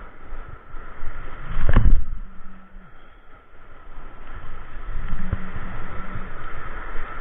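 Surf washing over a rocky shore with wind buffeting the microphone: a continuous rumbling rush, with one loud surge about two seconds in.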